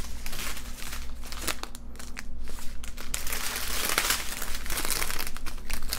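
Small clear plastic bags of resin diamond-painting drills crinkling and rustling as they are picked up and shuffled by hand, with a brief lull about two seconds in.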